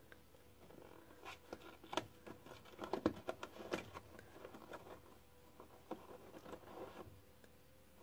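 A kitten rummaging among packets inside a drawer: faint, scattered rustles and light clicks, busiest about three seconds in and again near the end.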